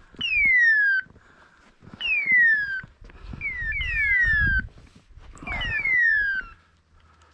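A pointing dog's beeper collar in point mode, giving a loud falling electronic screech about every two seconds. The signal means the dog has stopped and is holding a point. Four screeches sound, the last two each led by a short clipped note, with a dull rumble of footsteps on rocky ground in the middle.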